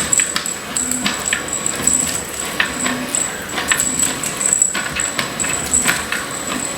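Battery-powered 4-in-1 cat toy running in its shake mode: small plastic balls rattling and clicking irregularly, over a steady high-pitched whine.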